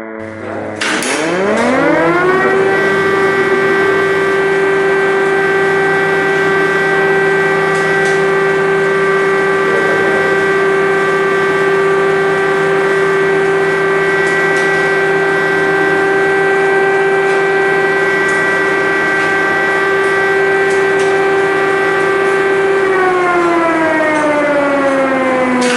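Air-raid siren winding up about a second in, holding one steady wailing tone for about twenty seconds, then starting to wind down near the end: an air-raid alert.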